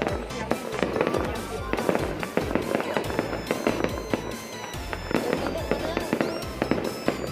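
Aerial fireworks display going off in a rapid, irregular barrage of bangs and crackles with low booms underneath.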